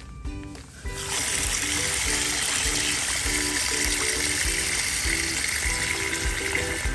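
Tap water pouring onto a basin of clams to rinse them, starting about a second in, over background music.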